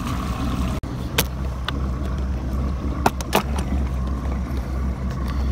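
A boat's motor running with a steady low hum, with a few sharp clicks and knocks about a second in and again near the middle.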